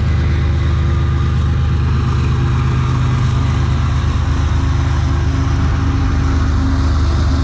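A long train passing, loud and steady, with the low drone of its locomotive engine.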